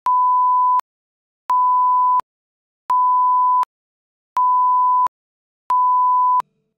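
A 1 kHz line-up test tone, the audio reference for setting levels that runs with video colour bars, sounding as five steady beeps of just under a second each, about one and a half seconds apart.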